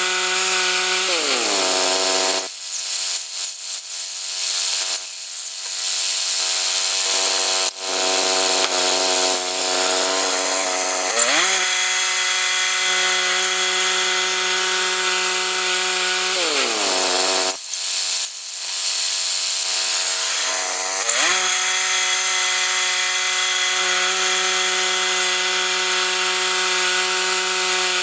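Gas engine of a saw milling pine logs into lumber, running at high, steady revs through the cut. Its pitch falls and it gives way to a rougher sawing noise about a second in and again about two-thirds of the way through, picking back up after each, and falls once more near the end.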